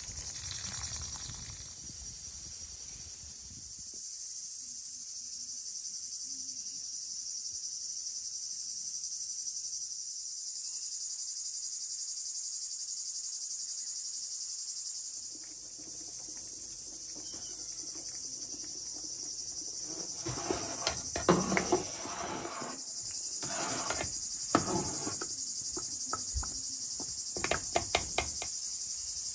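Steady, high-pitched chorus of insects chirring in summer greenery. Brushing on a wet wooden table is heard at first, and scattered sharp clicks and knocks come in the second half.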